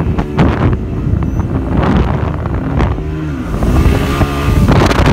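Speedboat engine running at high speed, its note dipping and climbing back about halfway through, with wind buffeting the microphone.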